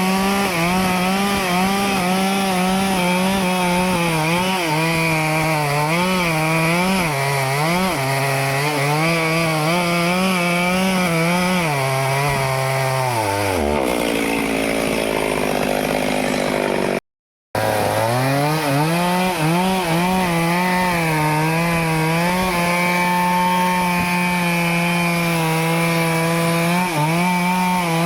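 Stihl chainsaw running under load as it cuts through teak wood, its engine note wavering up and down as the chain bites and frees. About 13 seconds in the engine note sinks away and a few seconds of rough noise follow. After a brief moment of total silence the saw is running again, settling to a steady high pitch.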